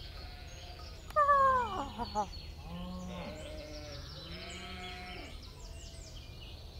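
Cartoon animal calls: a loud call falling steeply in pitch just over a second in, then a few shorter rising-and-falling calls and faint high chirps.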